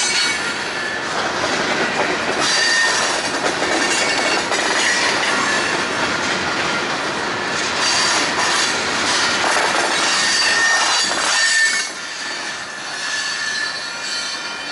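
Freight train's hopper and tank cars rolling past close by: a steady rumble of steel wheels on rail with high-pitched wheel squeal. About twelve seconds in it turns quieter, with the cars farther off.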